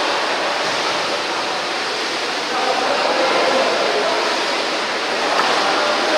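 Steady rush of water splashing in a pool as water polo players swim and churn the water, with faint voices in the background.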